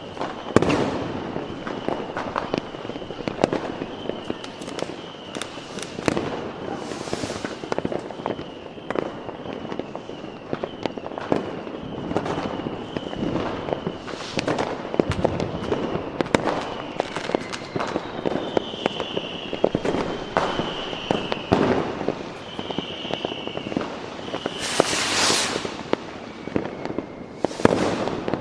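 Fireworks going off continuously: a dense run of bangs and crackling pops, with a few longer hissing bursts. A thin, high, wavering whistle runs through much of it and slides down in pitch a few times in the second half.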